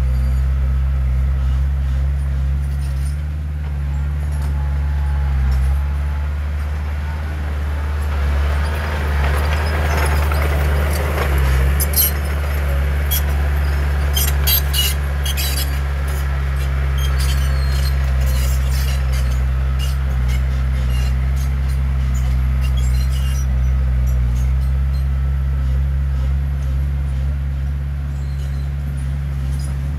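Heavy diesel earthmoving machinery, a bulldozer or dump truck, running steadily under load. A short run of sharp clanks and rattles comes about halfway through.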